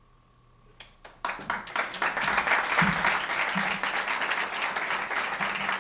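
Audience applauding: a couple of isolated claps about a second in, then a full round of clapping.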